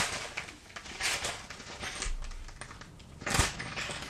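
Clear plastic zip bags of diamond painting drills crinkling and rustling as they are handled, in several short bursts, with one sharper knock about three and a half seconds in.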